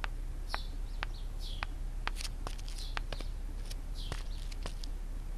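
Footsteps on a paved yard, heard as irregular light clicks, with small birds giving short, falling chirps over a low steady background hum.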